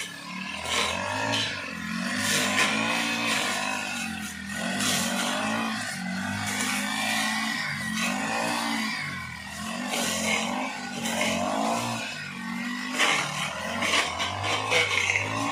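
Petrol brush cutter engine running and revving up and down again and again as the throttle is worked while cutting tall grass.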